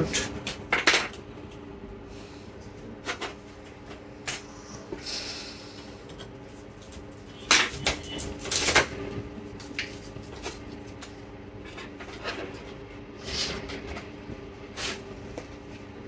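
Scattered clicks and knocks of a laptop motherboard and its small parts being handled and set down on a wooden desk, over a steady faint hum.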